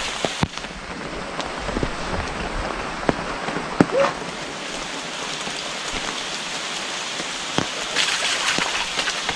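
Steady rain falling, with scattered sharp ticks of drops. A louder tick and a short chirp come about four seconds in, and the rain sound grows louder and more crackling near the end.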